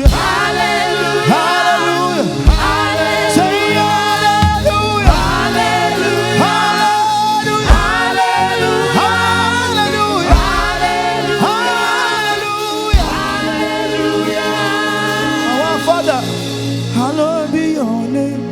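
Live gospel worship music: voices singing over a band, with a deep drum hit about every two and a half seconds.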